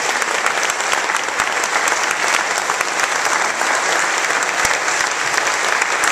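Audience applauding steadily, many hands clapping at the end of a choral piece.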